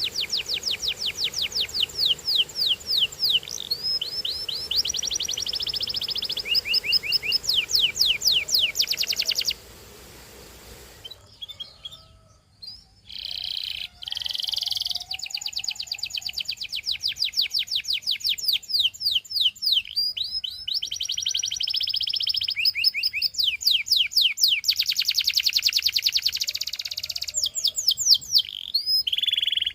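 Domestic canary singing: long rolling phrases of rapid repeated notes and trills, some sweeping up or down in pitch. The song breaks off about ten seconds in and picks up again a few seconds later.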